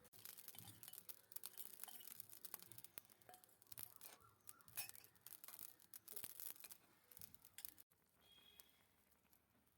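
Rapid, irregular scraping and clicking of small utensils against miniature cookware, stopping abruptly about two seconds before the end.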